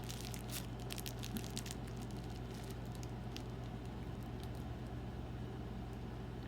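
A person chewing a brownie: soft, wet mouth clicks, many close together in the first two seconds and a few scattered after, over a steady low hum.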